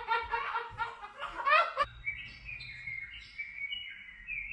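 A person laughing in short pulses, which cuts off sharply about two seconds in. Then come high bird chirps and tweets, played through a television's speakers from a bird video.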